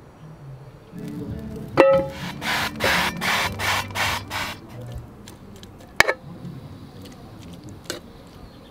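Cooking oil sprayed onto a nonstick frying pan in a quick run of six or seven short hissing bursts, after a sharp click. Two separate sharp clacks follow later.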